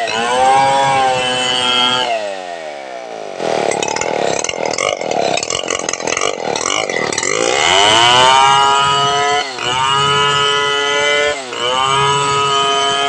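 Home-built two-stroke chainsaw modelled on the Stihl 070, ripping a medang log lengthwise. The engine runs at high revs, drops sharply about two seconds in and turns rough for a few seconds, then climbs back to full revs and holds there with brief dips as the chain cuts along the log.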